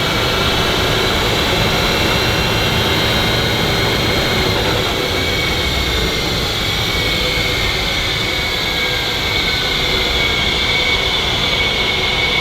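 BMW X3 F25's differential whining steadily with several high tones over a low drivetrain rumble, its wheels spinning under power on a lift. The mechanic puts this down to the differential's four spider gears turning constantly because one wheel is held back by a slightly dragging brake, which he calls normal rather than a differential fault.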